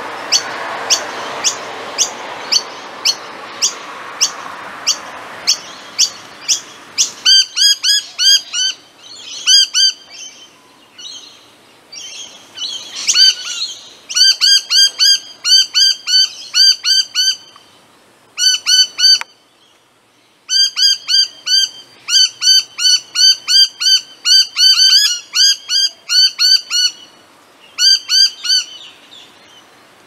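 Noisy miners calling: first a steady series of short, sharp high notes about two a second, then from about seven seconds in, bursts of rapid, ringing repeated notes with short pauses between them. A steady background hiss under the first notes stops about seven seconds in.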